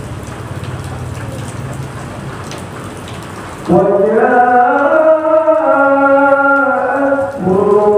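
A steady hiss of noise, then about halfway through a man's voice begins the melodious chanted Quran recitation of the imam leading Friday prayer, in long held notes, breaking briefly near the end before going on.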